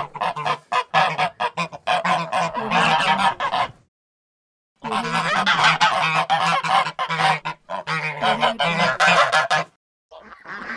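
A group of geese honking, many calls overlapping in a dense, loud chorus. It cuts to silence for about a second near the middle, resumes, and breaks off briefly again near the end.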